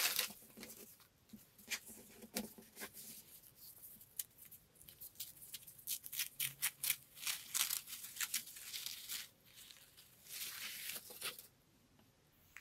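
White paper wrapping being unrolled and torn off a fountain pen by hand: a run of soft crinkles and tearing rustles that stops about a second before the end.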